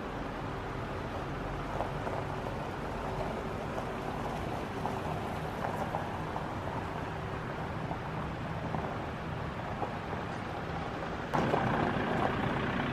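A small flatbed truck's engine running at low speed as it drives slowly closer, with a steady low hum. It gets suddenly louder about eleven seconds in as the truck pulls up close.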